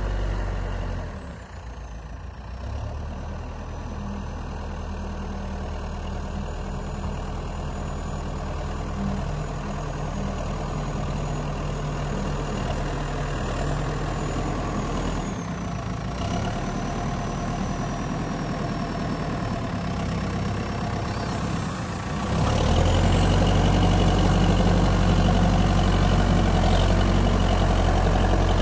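Escorts backhoe loader's diesel engine running as it works the front loader bucket through soil. The engine drops back about a second in, then revs up and gets louder about 22 seconds in, with a thin whine that falls and rises with engine speed.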